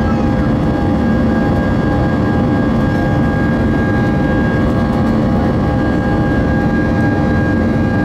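Airbus A320's jet engines during the climb after takeoff, heard inside the cabin over the wing: a loud, steady roar with several steady high whining tones over it.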